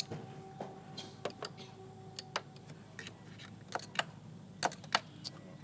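Irregular light clicks and taps from hand work in a car's engine bay, about a dozen spread unevenly, some in quick pairs, over a faint steady hum.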